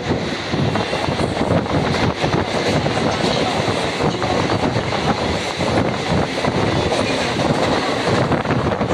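Mumbai suburban electric local train running: a steady rumble and rush of wheels on the track heard from on board.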